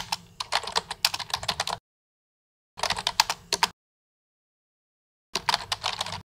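Computer keyboard typing in three short runs of quick keystrokes: one at the start lasting under two seconds, one about three seconds in, and one near the end, with dead silence between them.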